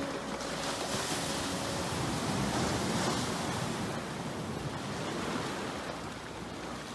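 Ocean surf breaking and washing over rocks: a steady rushing of waves that eases off slightly near the end.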